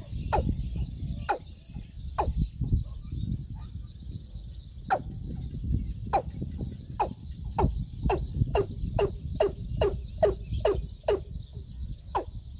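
Watercock calling: a series of short falling notes, spaced about a second apart at first, then quickening to about two a second, then slowing again near the end.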